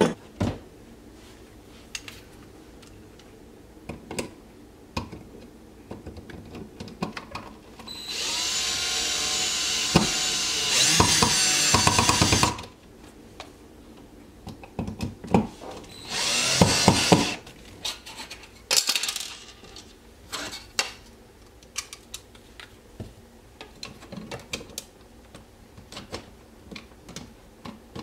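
Power drill running in three bursts: a run of about four seconds that winds up as it starts, about eight seconds in, then a run of about a second and a half and a brief blip. Scattered clicks and knocks of handling fall in between.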